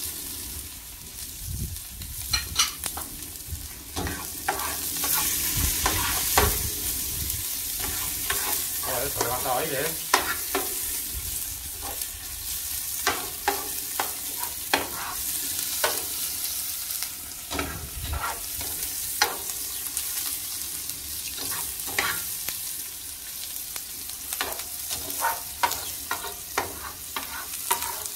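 Chopped onion, garlic and green peppers frying and sizzling in a paella pan over a wood fire, with a long-handled metal skimmer scraping and clicking against the pan as the sofrito is stirred now and then.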